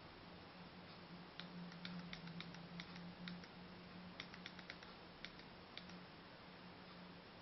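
Buttons on a handheld remote control pressed in quick runs, about twenty faint plastic clicks in two bunches, as the receiver's on-screen menu is stepped through. A faint steady low hum runs under them.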